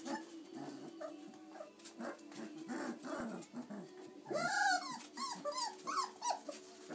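Litter of 26-day-old chocolate Labrador Retriever puppies play-fighting: small growls and grunts, then a run of high-pitched yelps a little past halfway.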